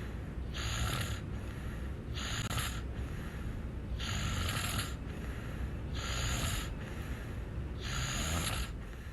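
Snoring in a slow, even rhythm. There are five snore cycles, each with a hissing breath about every two seconds, over a low rumble.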